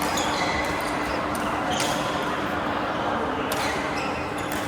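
Badminton rackets striking the shuttlecock in a rally: sharp hits every second or two, over steady background noise and voices.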